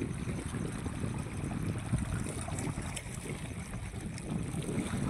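Wind buffeting the microphone, a steady low rumble, over small waves lapping against a stone shoreline.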